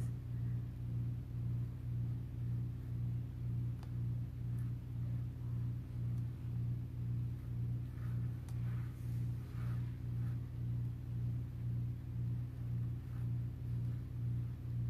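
Small electric cup turner motor humming steadily as it slowly rotates an epoxy-coated tray, the hum swelling and fading in an even pulse. A few faint light ticks are heard now and then.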